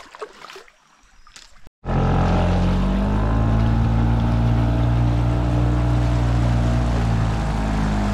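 Small outboard motor running steadily at speed, pushing the boat upriver against the current, with water rushing along the hull. It starts abruptly about two seconds in, after faint paddling and water sounds, and its pitch settles a little about a second later.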